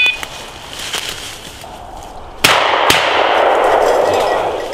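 Two shotgun shots about half a second apart, each a sharp crack that rings on and dies away over the next second or two. A dog's beeper collar sounds a short electronic beep at the very start.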